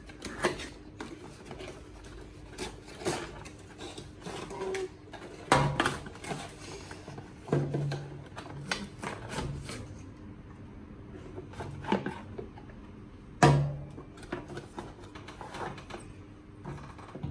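Cardboard slime-kit boxes being opened and handled and plastic glue bottles taken out: scattered rustles, taps and knocks, with a faint steady hum underneath and a few short voice sounds.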